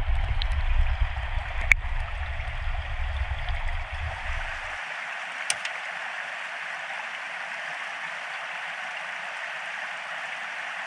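Steady rush of a stream running. A low rumble underneath cuts off abruptly about five seconds in, and there is a single sharp click a little under two seconds in.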